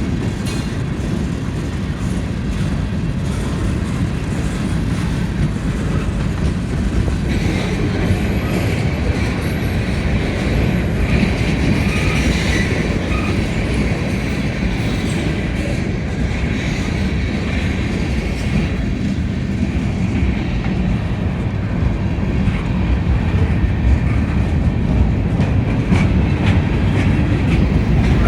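Freight train rolling past: steady rumble of the cars with wheels clicking over the rail joints. A faint high-pitched tone comes and goes, and the noise grows slightly louder near the end.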